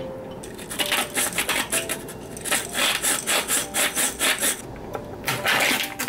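Cucumber being grated on a hand grater: quick rasping back-and-forth strokes, about four or five a second, with a brief pause shortly before the end.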